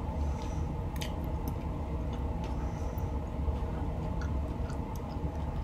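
Close-miked chewing of a mouthful of plant-based burger, with soft, scattered wet mouth clicks over a steady low hum.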